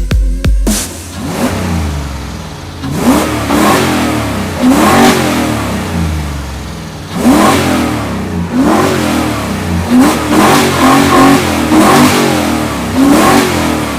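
Ford 302 V8 in a BMW E36, revved in about a dozen quick throttle blips over a steady idle, running through a broken, leaking exhaust.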